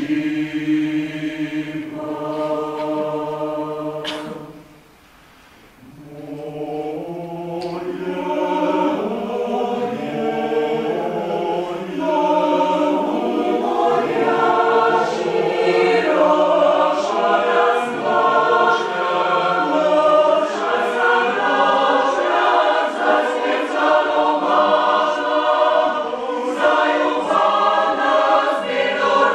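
Mixed choir singing in several parts. A held chord breaks off about four seconds in, and after a short pause the voices come back in, growing louder and fuller from about twelve seconds in.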